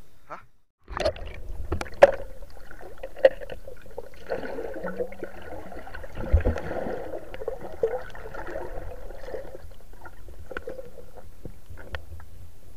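Muffled underwater noise as a diver swims, water moving past the camera, with sharp clicks and knocks scattered through it. The sound drops out briefly just under a second in.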